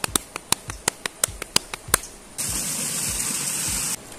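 A run of sharp, irregular crackling clicks, then a loud steady hiss that starts abruptly a little past halfway and cuts off just before the end.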